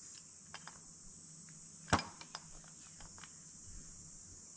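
Light clicks and taps of small metal carburetor parts and hand tools being handled on a workbench, with one sharper click about two seconds in.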